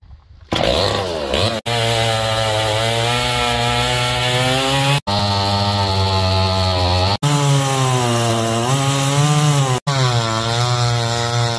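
Two-stroke chainsaw running at high revs, its pitch sagging and recovering as if the chain is under load in a cut. The sound is broken into several pieces by sudden cuts.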